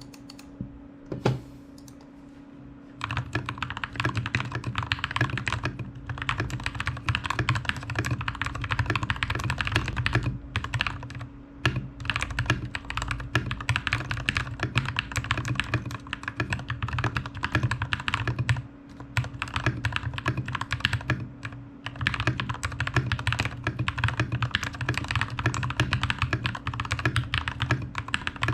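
Fast typing on a TM680 V2 mechanical keyboard: a dense stream of key clacks that starts about three seconds in, with a short break about two-thirds of the way through, over a steady low hum.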